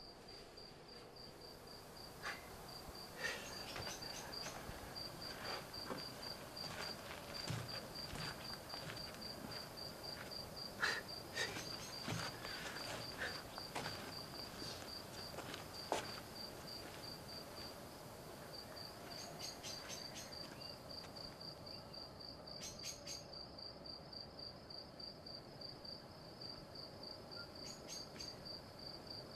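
Cricket chirping in a steady, evenly spaced, high-pitched pulse that pauses briefly about two-thirds of the way through, with occasional soft clicks and rustles.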